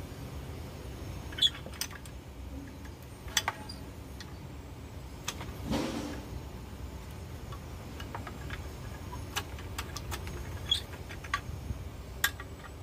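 Scattered sharp clicks and knocks of a hand-operated steel lever tool and hard pangi (kepayang) seed shells as a seed is set in the holder and the lever is worked, with a short crunching scrape about six seconds in as the lever presses into the shell. A steady low rumble runs underneath.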